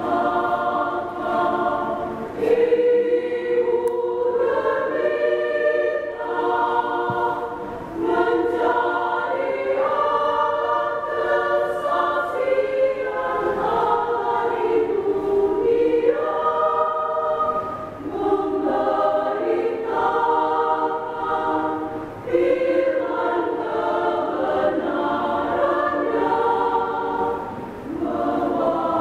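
Women's choir singing a hymn, phrase after phrase with brief breath pauses between them.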